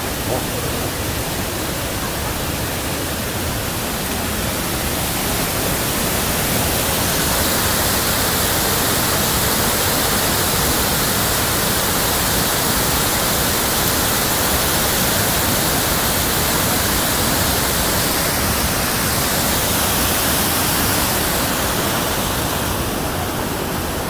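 Waterfall rushing steadily into a rocky pool, growing louder a few seconds in and easing slightly near the end.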